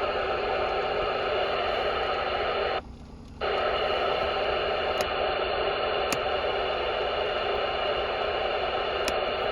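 Steady static hiss, like an open radio channel. It cuts out for about half a second about three seconds in, then resumes.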